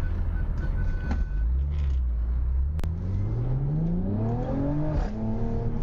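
Car engine heard from inside the cabin, accelerating: its pitch rises steadily from about two and a half seconds in, then holds, over a steady low road rumble. A short run of quick beeps sounds in the first second or so, and a single sharp click comes near the middle.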